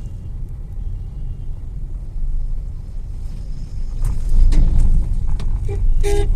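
Low road rumble inside a Tata Altroz's cabin while driving, with a few short knocks and rattles near the end as the car goes over a dip. The knocks come from around the steering and appear over small potholes, a fault that the service centre has not yet traced.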